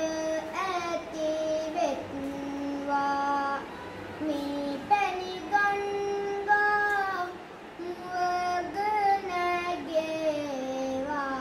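A young novice Buddhist monk singing kavi bana, Sinhala devotional verse, in a child's voice: a slow melody of long held notes that glide between pitches, with short breaths between phrases.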